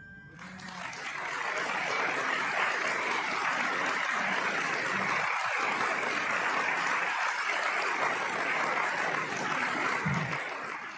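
Audience applauding. The clapping swells up over the first second or two, holds steady, then fades out at the very end.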